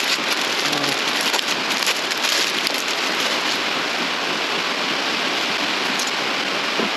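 Steady hiss of heavy rain on the roof, with a few faint clicks and rustles from parts being handled in the first couple of seconds.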